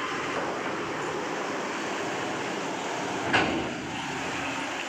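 Mercedes-Benz coach bus running at low speed as it creeps up the ferry's loading ramp, with a single sharp metallic clank about three and a half seconds in.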